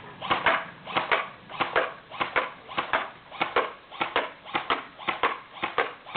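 M15A4 electric airsoft rifle (AEG) firing semi-automatic, about ten single shots in steady succession, a little under two a second, each heard as a quick double snap.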